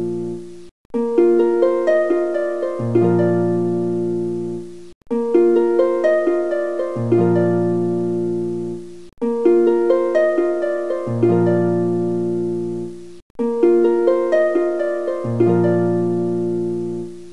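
Background music: a short phrase of plucked, harp-like notes over a low bass note, looping about every four seconds with a brief silent gap before each repeat.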